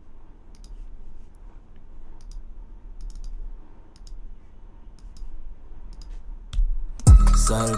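Scattered light computer mouse clicks as settings in the EQ plugin are changed. About seven seconds in, a hip-hop beat starts playing with a deep, booming kick.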